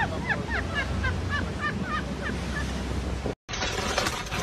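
Gulls giving a quick run of short, arched calls over steady wind on the microphone. The calls fade within about two seconds, and after a sudden cut comes the crackle of a paper bag being rummaged.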